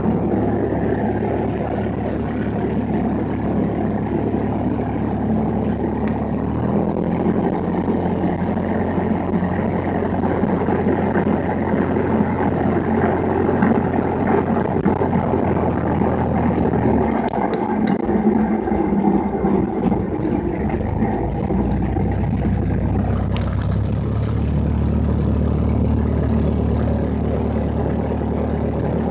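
Cessna 172's piston engine and propeller running at low taxi power, heard from inside the cabin. The engine note shifts a few times as the throttle is moved, about a quarter of the way in, again a little past halfway, and near the end.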